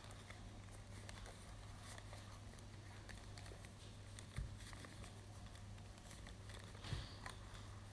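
Faint handling noises of a ball-jointed doll being moved about and dressed: light clicks and rustles, with two soft bumps about four and seven seconds in.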